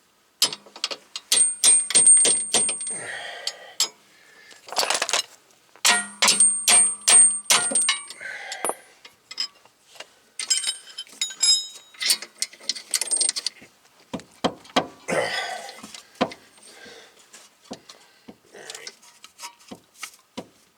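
A steel bolt and hand tools clinking, tapping and scraping against a car's suspension knuckle as the bolt is worked out, in bursts of rapid sharp clicks with a high metallic ring.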